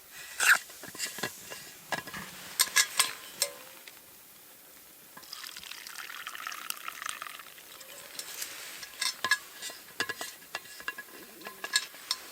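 Liquid, likely coffee from a thermos, poured into a cup for a couple of seconds about five seconds in, amid scattered clicks and knocks of handling a cup and gear.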